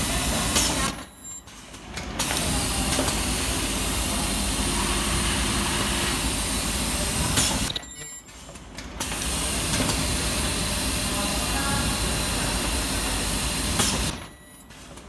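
Mask breathing-valve ultrasonic welding machine running through its cycle: a steady machine hum and hiss, broken three times, about every seven seconds, by a short loud burst with a high-pitched squeal at its start as each weld is made. A moment of quiet follows each burst.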